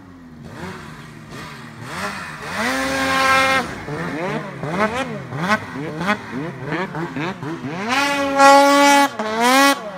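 Two-stroke mountain snowmobile engine revved up and down over and over as the sled works through deep powder. It is held at high revs for about a second around three seconds in, and twice more near the end.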